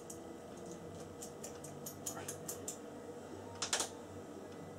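Quiet, quick scraping clicks of a Stanley knife blade working the insulation off a thin stator coil wire to bare the copper, a few a second, then a louder double click a little over three and a half seconds in.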